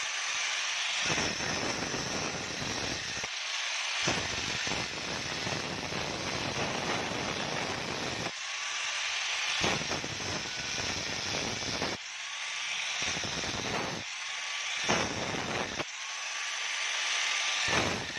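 Angle grinder with a thin cut-off disc cutting into the copper windings of an A/C compressor's motor stator: a steady harsh grinding. Several times the disc eases off the metal for a second or so and the motor's whine rises before it bites again.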